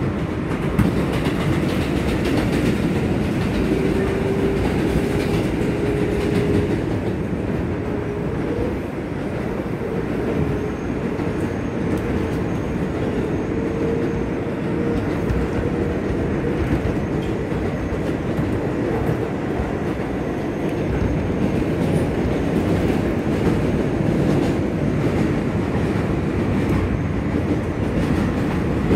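R142A subway train heard from inside the car while running between stations: steady wheel-and-rail noise, with a faint whine that rises in pitch over the first half.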